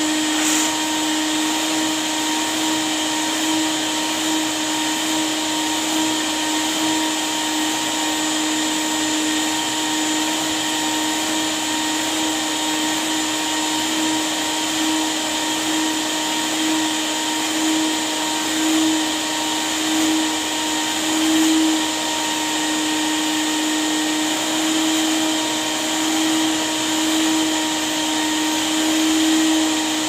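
Stainless-steel drum canister wet/dry vacuum cleaner running steadily while its hose nozzle is worked over fabric chair seats: a constant motor hum with a steady whine, swelling slightly in loudness now and then.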